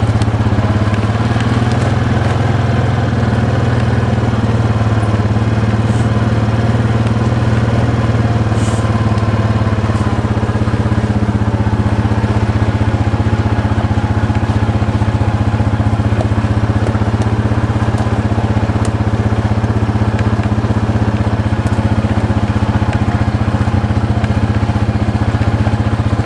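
Vehicle engine running steadily in first gear while driving slowly down a road, with a few faint rattles and clicks.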